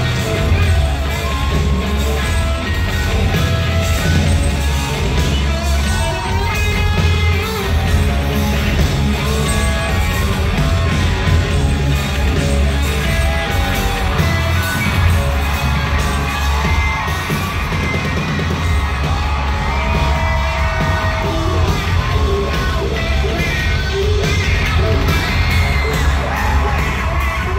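A live rock band plays loudly, with electric guitar, drums and a singer, and there is yelling. The sound is heard from the crowd in a large hall.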